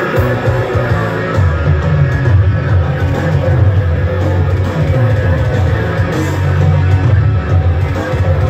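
A heavy metal band playing loud and live: electric guitar over heavy bass and drums, with the low end coming in right at the start.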